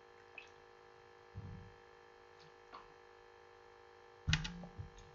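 Quiet room tone with a steady electrical hum. There are a few faint ticks, and a short louder burst of noise comes near the end.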